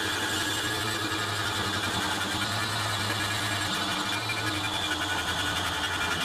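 Angle grinder running steadily, its abrasive disc grinding against the steel of a rusty axe head to clean the rust off.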